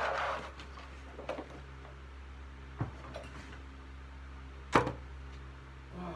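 Scattered knocks and clatter of junk being handled and set down or tossed while clearing a storage space, with one sharp, loud knock about three quarters of the way through. A steady low hum runs underneath.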